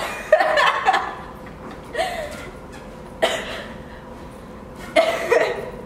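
Short, muffled bursts of laughter and coughing from two teenage girls with their hands over their mouths, several bursts a second or so apart. One of the girls has a cold.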